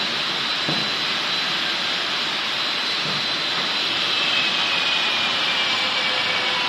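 Double-head uPVC window-profile welding machine running with a steady hiss and machine noise, and a faint high whine that drifts slightly down in pitch in the second half.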